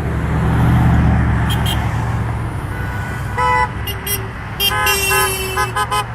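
A vehicle passes close by, then car horns honk repeatedly from about three seconds in: a few short toots, one longer honk, and a quick run of short taps near the end. Drivers are honking in support of a veteran standing at the roadside.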